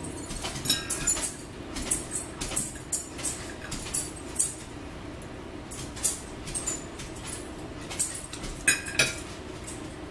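Close-up eating sounds: chewing and lip smacks, an irregular run of short wet clicks and crackles as fish is eaten by hand.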